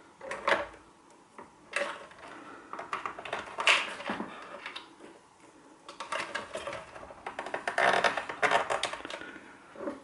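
Irregular small clicks and rattles of crocodile-clip test leads being handled and clipped onto an electric shower's micro switch terminals, with light knocks on the plastic casing. The clicking is busiest from about six to nine seconds in.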